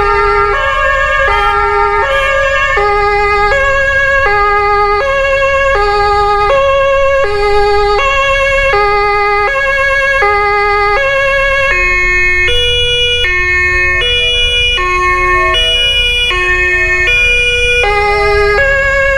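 German-style two-tone emergency-vehicle horn (Martinshorn) sounding, alternating between two notes about a fourth apart, each held a bit under a second, over a low vehicle rumble. About twelve seconds in, the pair of notes drops lower in pitch.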